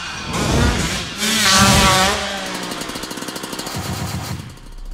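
Motorcycle engine sound effect: the engine revs with a wavering pitch, loudest about a second and a half in, then settles into rapid, even pulses that fade out near the end.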